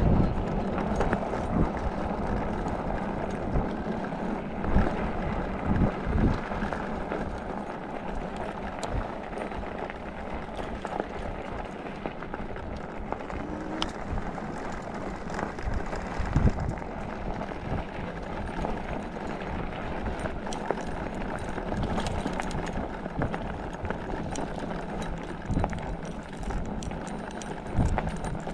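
Mukkpet e-bike being ridden: a steady rush of wind and tyre noise with irregular low thumps and bumps.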